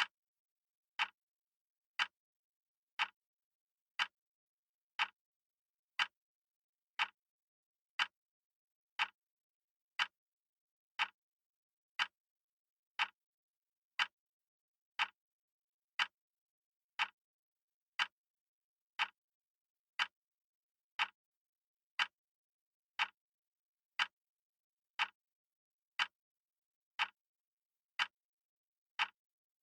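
A clock ticking steadily once a second. Each tick is a short, crisp click, with silence between the ticks.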